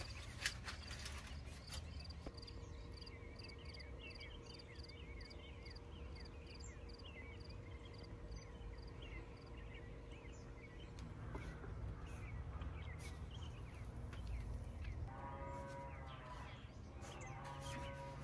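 Faint outdoor animal calls: a high chirp repeating about twice a second among scattered short chirps, then two longer calls that rise and fall in pitch near the end.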